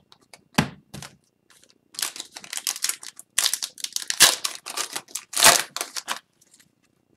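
Foil wrapper of an Upper Deck hockey card pack being torn open by hand, a dense run of crackling and clicking from about two seconds in until near the end, after a few light taps in the first second.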